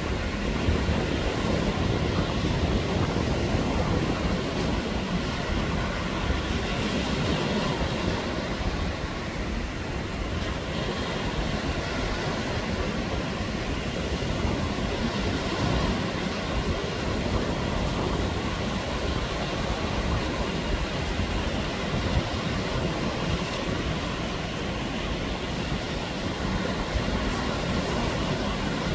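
Surf breaking on a sandy beach: a steady rushing noise with a strong low rumble.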